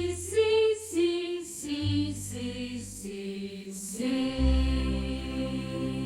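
Children's song music playing a short melodic phrase over a steady beat, then settling on a held chord about four seconds in.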